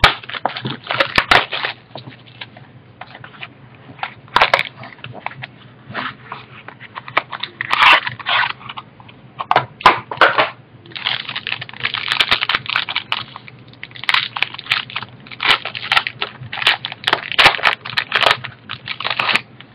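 Foil wrapper of a trading-card pack crinkling and crackling in the hands as it is torn and peeled open, coming in spurts of a second or two with short pauses between.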